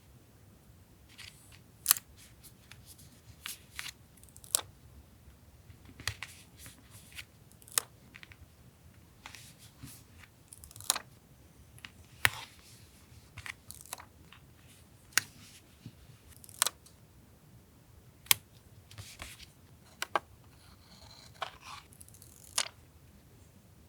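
Paper and stationery being handled for journal collage: sharp, irregular taps and clicks, with brief stretches of paper rustling, the longest near the end.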